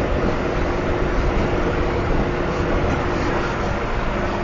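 Intercity bus running at highway cruising speed, about 110 km/h, heard from inside the cabin: a steady drone of engine, tyre and wind noise with a constant hum.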